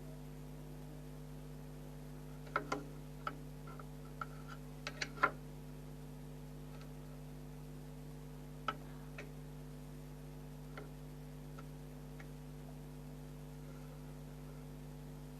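A steady low electrical hum, with scattered light clicks and taps: several in quick succession between about two and five seconds in, then a few single ones later.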